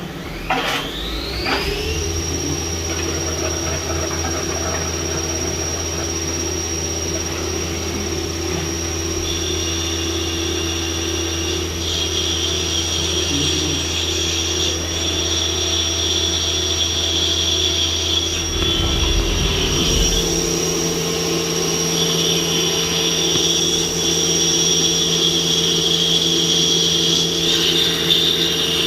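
CNC machine running: its spindle spins up with a rising whine over the first two seconds, then holds a steady high whine over a low machine hum, with an intermittent harsher cutting sound joining from about a third of the way in. The low hum shifts pitch about two thirds of the way through.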